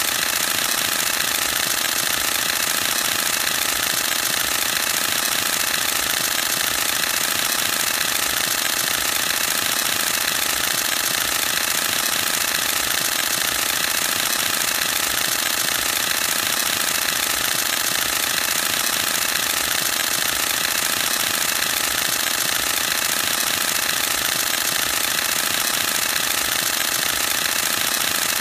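Canon EOS-1D X Mark II shutter and mirror firing in high-speed continuous burst: a rapid, even mechanical clatter that runs on without a break.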